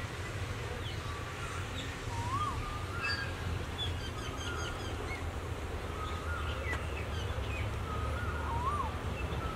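Birds calling: scattered short chirps and a rising-and-falling whistle heard twice, over a steady low rumble.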